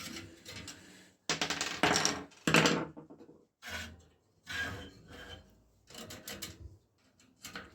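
Spoke key straining at a stiff, possibly seized spoke nipple on an old bicycle wheel, grating and squeaking in several short bursts.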